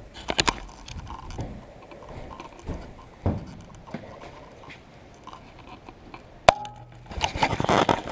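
Handling noise from a small camera being taken down, carried and remounted: rubbing and scattered knocks, one sharp click about six and a half seconds in that rings briefly, then a burst of rustling near the end.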